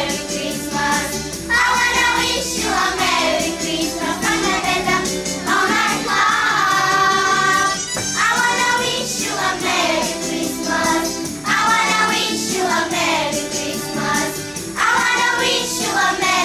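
Children's choir singing a Romanian Christmas carol (colind), phrase after phrase.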